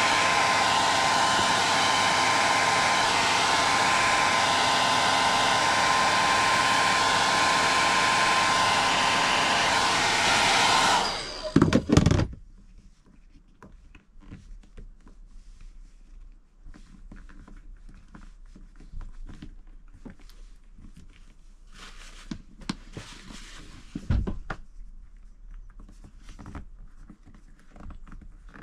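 Handheld hairdryer blowing hot air onto plastic caravan window trim to soften it: a loud, steady rush of air with a thin high whine. It is switched off about eleven seconds in, with a couple of knocks as it is put down. After that come faint rubbing and tapping as the trim is pressed down by hand.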